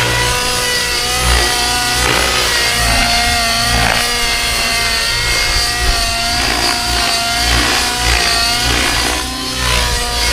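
Align T-Rex 700N nitro RC helicopter's two-stroke glow engine and rotor running in flight, the pitch wavering up and down as it flies 3D manoeuvres.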